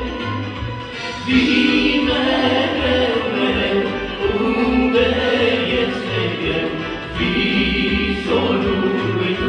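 Christian gospel song: a vocal group singing in harmony over instrumental backing with a moving bass line.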